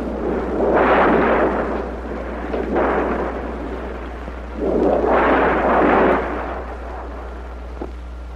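Storm sound effect on an old film soundtrack: gusts of wind and rain noise that swell and fade three times, over a steady low hum.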